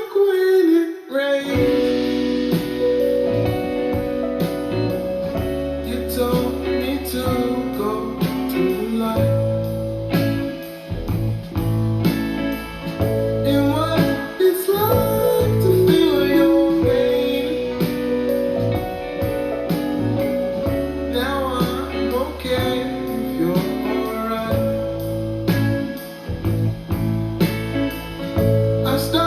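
Pop song playing: plucked guitar over a deep bass line and a steady beat, with singing.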